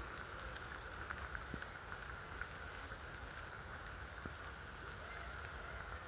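Light rain falling on rose leaves and garden surfaces: a steady hiss with many small scattered ticks of drops hitting.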